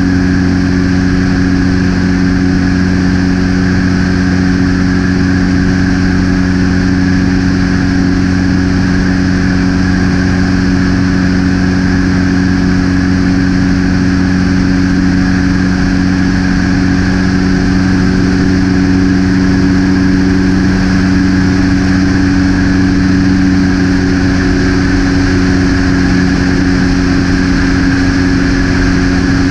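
Propeller aircraft in level cruise, heard from inside the cabin: a loud, steady drone of engine and propeller, a deep hum of even tones that does not change.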